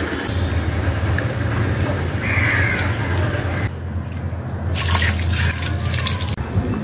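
Spiced chicken sizzling in a clay pot as it is stirred with a wooden ladle. About four seconds in, water is poured from a bowl and splashes into the pot for a couple of seconds. A steady low hum runs underneath.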